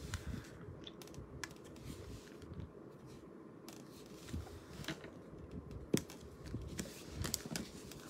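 Faint scattered clicks and light taps of a craft pick tool lifting adhesive rhinestone gems off their sheet and pressing them onto card stock, with soft paper handling; one sharper click about six seconds in.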